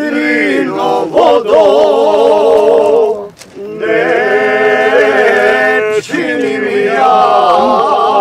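Male voices singing a slow song in long, wavering held notes, with a short pause about three seconds in.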